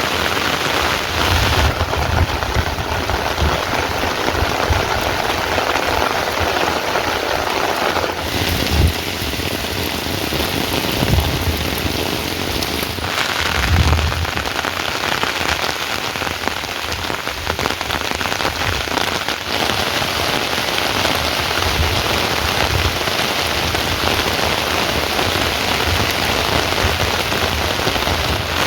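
Heavy rain pouring steadily, with low rumbles swelling up twice around the middle.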